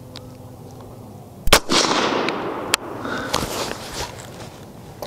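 A single rifle shot from a suppressed 6.5 Grendel AR-15 about a second and a half in, its report echoing and fading over the next couple of seconds, followed by a sharp click about a second later.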